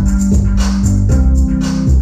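A live band playing: held bass notes that change every second or so, under a steady run of crisp high percussion strokes keeping time.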